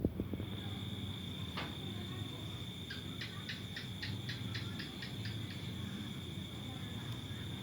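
Insects, crickets by their sound, trilling in one steady high note. A second, pulsed chirp joins about three seconds in, about four pulses a second for under three seconds.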